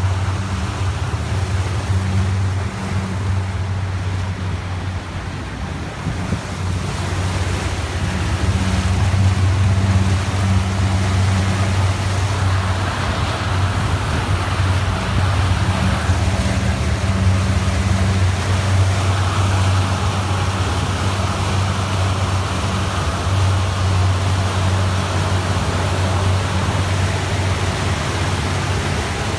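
Outboard motor running steadily with a low hum while the boat is under way, over the rush and splash of water along the hull and the wake. The sound gets a little louder about a quarter of the way in.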